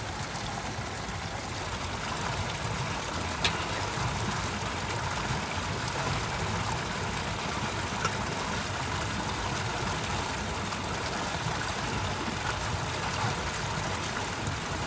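A metal ladle scoops stew from a cast-iron wok into a steel basin, with a couple of short clinks about three and eight seconds in. Under it runs a steady low rumble, the loudest thing throughout.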